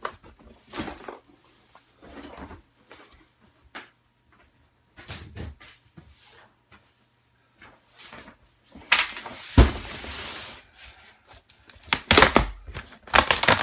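A box and the packaged items in it being handled: scattered knocks and rustles, a longer rustle about nine seconds in, and a few sharp knocks near the end.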